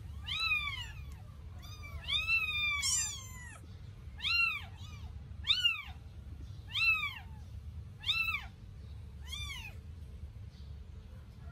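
Eight-day-old Sphynx kitten mewing while being handled: a string of high-pitched calls that rise and fall, about one a second, stopping about nine and a half seconds in. A steady low hum lies underneath.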